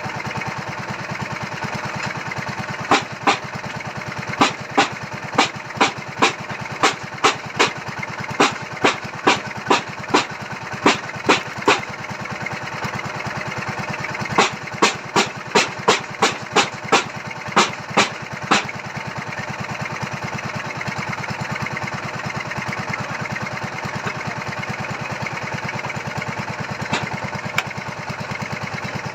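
Small petrol engine of a foundation-digging drill running steadily. Over it comes a run of sharp knocks, about two a second, for roughly nine seconds; a short break follows, then another run of about four seconds, and two more single knocks near the end.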